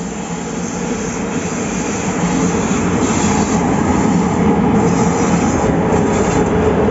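Passenger train pulling into the station, its rumble growing louder over the first few seconds and then holding steady, with patches of high wheel squeal.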